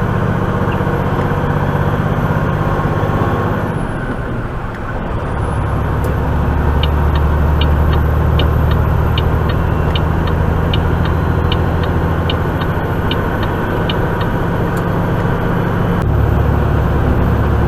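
Tractor-trailer's diesel engine running steadily under way, its note dipping and changing about four to five seconds in and shifting again near the end. A light ticking, about twice a second, runs through the middle.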